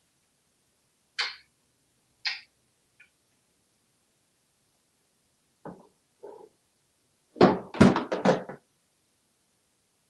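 A toy box and plush toys knocked off a counter by an African grey parrot, landing as a quick cluster of thumps about seven and a half seconds in. Before that come a few shorter, softer sounds as the parrot pulls at the toys.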